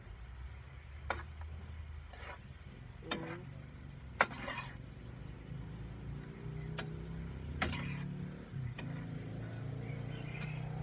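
A cooking utensil knocking and clinking against a pan about six times at uneven intervals while sweet potato is stirred and fried in sugar, the loudest knock about four seconds in. A steady low hum runs underneath.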